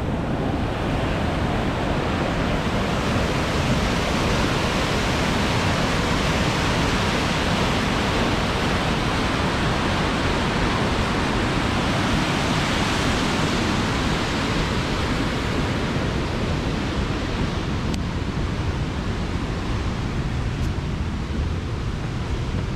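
Steady rush of a mountain creek's runoff pouring as whitewater falls and rapids over a rock ledge, loud and unbroken.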